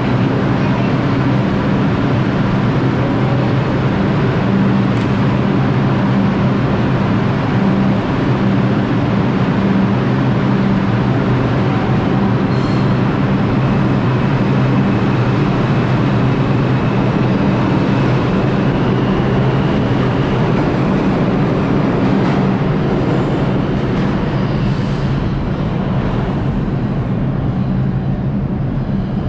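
New York City subway train running between stations, heard from on board: a steady, loud rumble of wheels on rail and traction motors with a low hum, and a faint high whine about halfway through.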